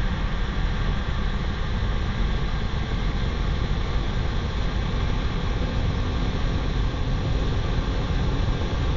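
Steady jet engine noise and rushing air from a camera mounted on a Blue Angels F/A-18 Super Hornet in close formation flight. The noise is even and heavy in the low end, with a few faint steady tones above it.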